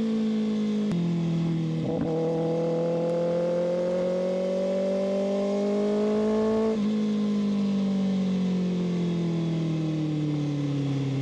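Kawasaki ZX-6R's inline-four engine under way: its pitch steps down about a second in as it shifts, then climbs steadily for several seconds as the bike accelerates. Near seven seconds in the pitch drops and then falls slowly as the throttle is rolled off.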